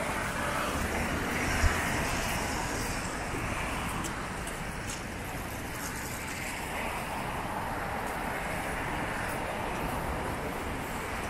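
Steady city street traffic noise from cars on a wide avenue, with one brief low thump about a second and a half in.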